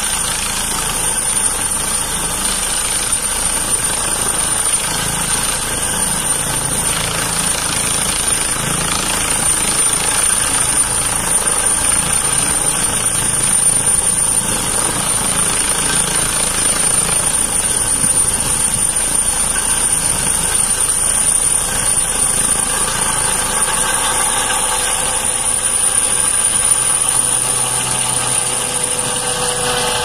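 Helicopter hovering close by, its rotor and turbines running steadily with a constant high whine, then flying off near the end.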